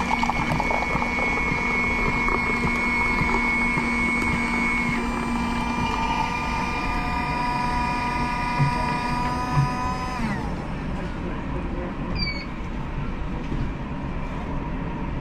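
A long, steady horn-like chord of several pitches sounds for about ten seconds. All its pitches sag slightly together as it cuts off, followed by steady background noise. Two short low knocks come just before it ends.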